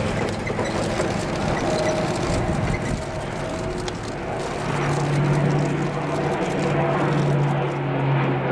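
Airbus A400M Atlas's four TP400 turboprops with counter-rotating propellers droning in a flying display. A deep steady propeller tone grows stronger about five seconds in.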